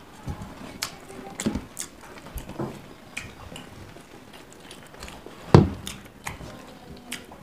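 People eating rice by hand: chewing, with small clicks and scrapes of fingers on steel plates. About five and a half seconds in there is one loud knock, a steel tumbler set down on the table.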